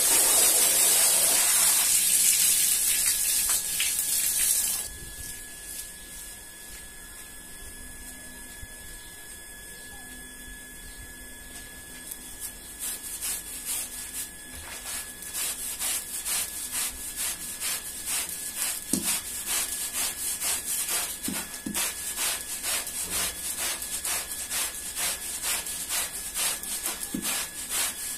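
Water pouring and splashing onto a rug for about the first five seconds. After a quieter stretch, a long-handled scrubber rubs back and forth over the wet, soapy rug in quick, regular strokes, about two a second, growing steadier towards the end.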